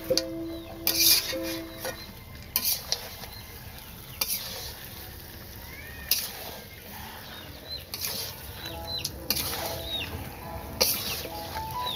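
Metal spatula stirring duck curry in a black iron wok, scraping and clanking against the pan every second or two over a low sizzle.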